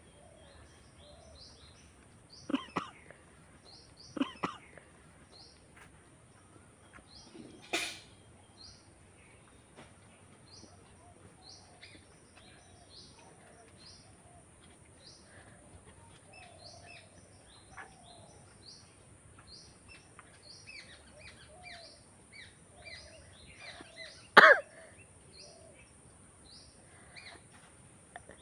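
A woman coughing and sneezing in short sharp bursts as she tickles the inside of her nostril to force a sneeze. There are a few bursts in the first eight seconds and the loudest comes near the end. Small birds chirp continuously in the background.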